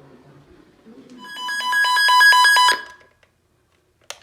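Electronic alert tone from an emergency weather broadcast: a loud warble of two pitches, rapidly pulsed and growing louder for about a second and a half before it cuts off. Two short clicks follow near the end.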